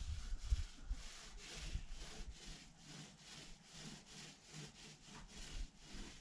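Primer being spread over a fiberglass skiff hull in quick, even back-and-forth strokes, about four a second, a soft scrubbing rub.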